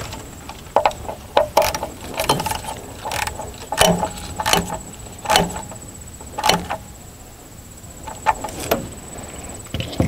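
Irregular sharp metal clinks and knocks from a hand tool and wiring connector being fitted to an engine ECM, each with a brief ring, about a dozen in all with a pause before two more near the end.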